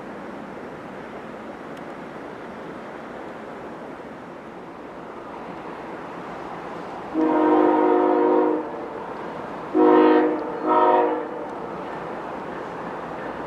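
Diesel locomotive air horn sounding one long blast about seven seconds in, then two short blasts close together, over a steady hiss.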